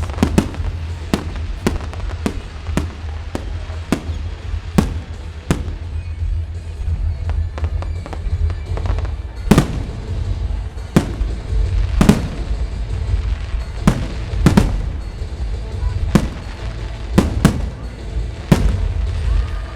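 Fireworks display: aerial shells bursting in a steady run of sharp bangs, over a constant low rumble. Quick lighter reports come every half second or so at first. After a lull, heavier bangs come a second or two apart in the second half, the loudest about twelve and fourteen seconds in.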